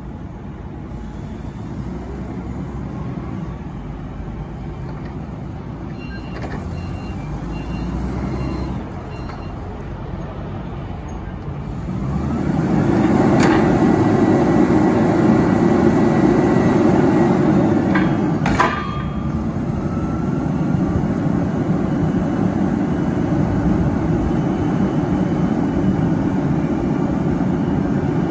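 Engine of a Cat GP45N1 forklift running as the truck drives and manoeuvres, with a short run of faint beeps, and then running louder from about twelve seconds in. Two sharp clicks come partway through.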